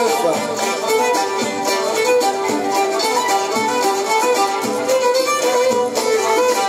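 Live Moroccan chaabi band music: a violin carries the melody over a steady drum beat.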